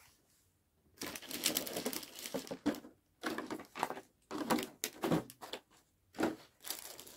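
Clear plastic packaging crinkling and rustling as it is handled. It starts about a second in and comes in several bursts with short pauses.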